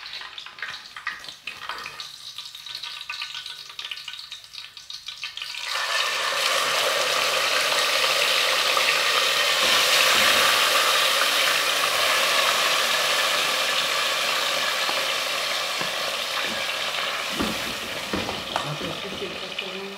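Cooked beans frying in hot oil and garlic in an aluminium pot while being stirred with a spoon, the step that seasons the beans. After a few quieter seconds a loud sizzle starts suddenly about six seconds in and then slowly eases.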